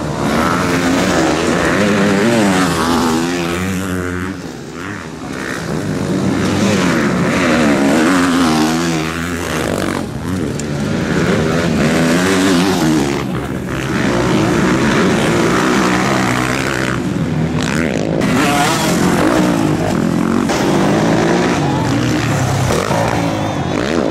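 Motocross dirt bike engines revving hard as bikes race past, the pitch climbing and dropping again and again through the gear changes.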